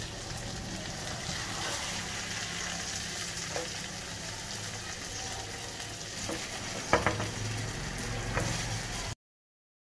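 Okra and chicken curry sizzling in a non-stick frying pan while a spatula scrapes it out into a bowl, with a few knocks of the spatula against the pan or bowl, the loudest about seven seconds in. The sound cuts off abruptly near the end.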